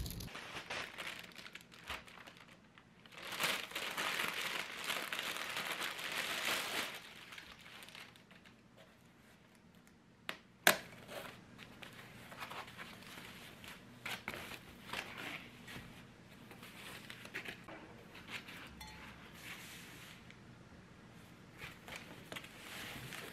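Packaging crinkling and rustling as foam wrap sheets are pulled off a glass mug and plate by hand, densest for a few seconds near the start and then in quieter scattered handfuls. A single sharp tap about ten seconds in.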